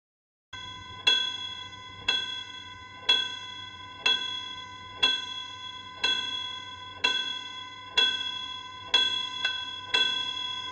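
A bell struck repeatedly, about once a second, each strike ringing on into the next. The strikes come closer together near the end, then the ringing cuts off abruptly.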